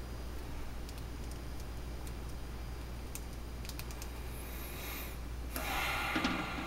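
Faint scattered clicks of a plastic action figure being handled over a steady low hum, then near the end a short louder splash as the figure's arm is dipped into a mug of hot water to soften its stiff elbow joint.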